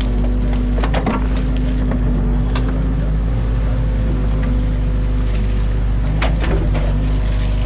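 Excavator's diesel engine running steadily under hydraulic load, with sharp cracks and knocks of sticks and mud breaking as the bucket digs into a beaver dam, once about a second in and again around six seconds in.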